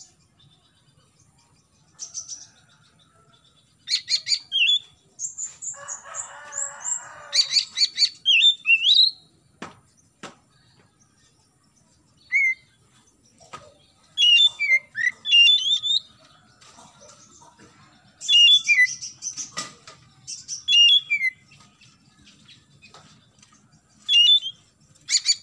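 Oriental magpie-robin (kacer) singing in separate bursts of quick whistles, trills and down-slurred notes, with pauses of a second or more between phrases. A short raspy buzz comes about six seconds in, and a few sharp clicks fall between phrases.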